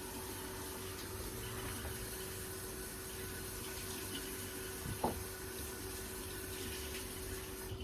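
Kitchen faucet running into a sink, a steady rush of water, with a single knock about five seconds in.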